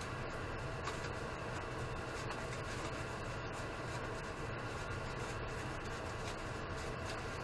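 Steady low hum and hiss of room noise, with faint rustling of cardboard being handled.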